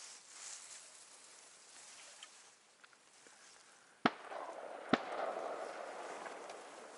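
Two shotgun shots a little under a second apart, each followed by a long rolling echo that fades slowly.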